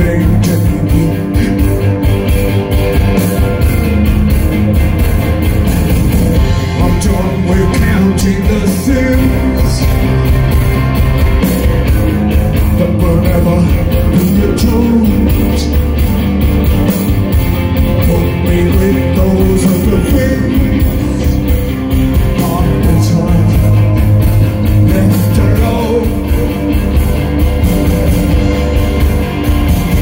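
A rock band playing live, loud and steady: electric guitars, bass guitar and drums, with a man singing lead at the microphone.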